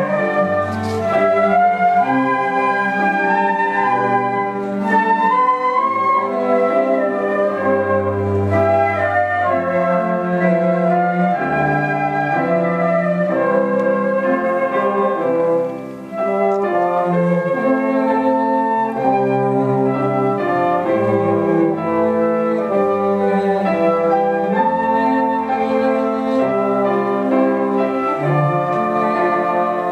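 Flute ensemble playing a melody in several parts over a low bass line, with a brief break about halfway through.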